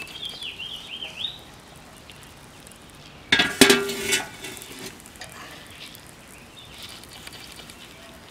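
A metal utensil strikes the grill with a sharp ringing clank a little over three seconds in, over the faint hiss of onions sizzling on the charcoal. A bird chirps several times in the first second or so.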